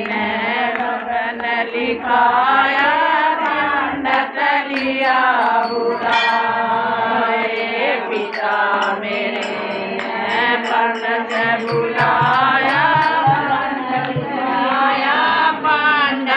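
A group of women singing a Hindi devotional bhajan together, with hand-clapping keeping time.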